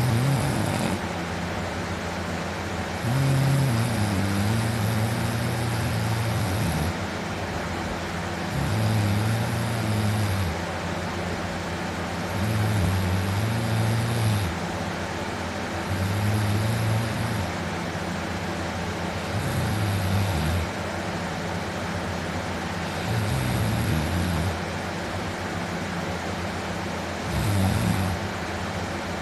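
A man snoring loudly in deep sleep while lying on his back: a low snore about every three to four seconds, some drawn out for two or three seconds, over a steady background hiss.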